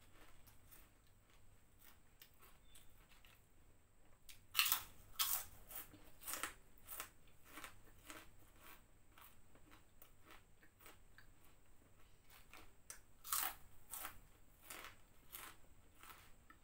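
Shrimp crackers (kerupuk udang) being bitten and chewed close to a clip-on microphone: a run of irregular crisp crunches, with the loudest bites about four and a half seconds in and again around thirteen seconds.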